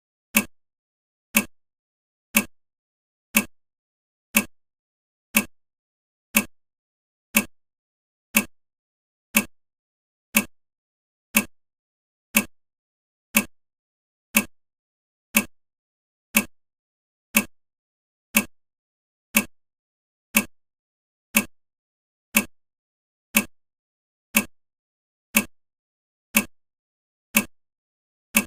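Clock-tick sound effect of a countdown timer, one short, sharp tick every second that fades quickly, in an even, unbroken rhythm.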